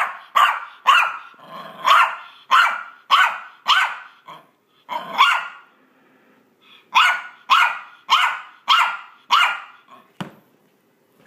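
Maltese dog barking in a rapid run of sharp barks, about two a second, during play. After about five seconds the barking pauses briefly, then six more barks follow, and a single knock comes just after ten seconds.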